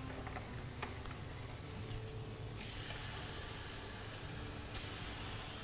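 Steady sizzle of food frying in a hot pan, growing louder and brighter for about two seconds midway.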